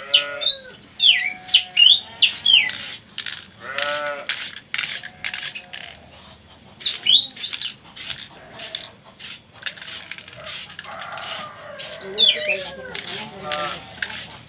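Caged songbirds chirping: quick, sharp whistled notes that sweep up and down, among scattered clicks, with a few lower calls at three points.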